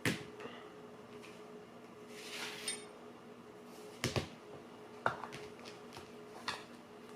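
Small objects being handled and set down: a few sharp clicks and knocks, a double knock a little after four seconds, and a short rustle of packaging about two and a half seconds in.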